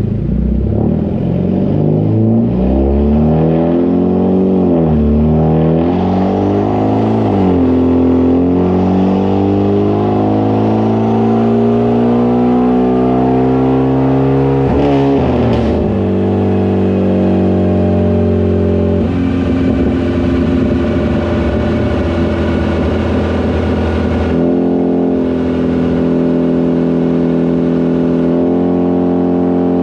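Hyundai Genesis Coupe 2.0T's turbocharged four-cylinder engine running on a chassis dyno. A few quick revs come first, then a long pull in which the pitch climbs steadily for about seven seconds and cuts off sharply about halfway through with a short burst of noise. It then runs at a fairly steady engine speed for the rest.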